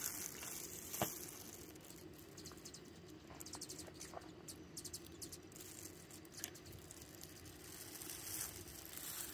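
Quiet handling sounds of a trout being dipped in beaten egg and pressed into cornmeal fish-fry breading, with one sharp tap about a second in and a few soft ticks and pats after it.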